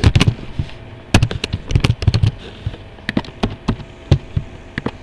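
Computer keyboard typing: irregular clicks of keys being struck, a few a second.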